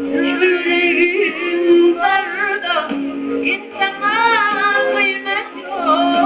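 Music: a singer's voice bending and wavering through an ornamented melody over a steady held accompanying tone.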